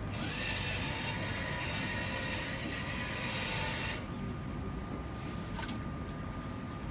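Motor-driven glass turntable turning on its rollers: a steady mechanical whir with a hiss, which stops abruptly about four seconds in. A couple of short, sharp clicks follow.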